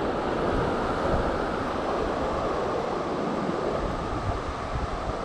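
Steady rushing of ocean surf breaking on the beach, mixed with wind buffeting the microphone in an uneven low rumble.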